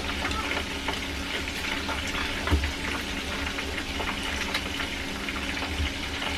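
Chicken pieces deep-frying in hot oil, a steady sizzle with many small crackles and pops.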